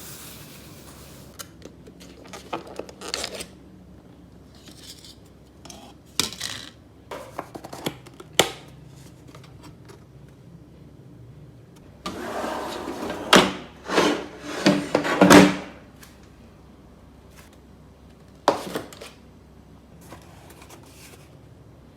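Kitchen handling sounds: dishes and utensils knocked and set down in scattered clinks and taps, with a louder stretch of clatter and scraping about twelve to sixteen seconds in.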